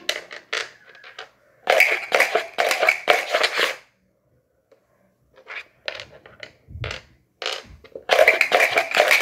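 Small dice clicking and rattling inside a plastic dice cup swirled on a wooden floor to stack them, in two spells of rapid clatter with single clicks of dice being picked up and set down between them. A dull thump comes a little before the second spell.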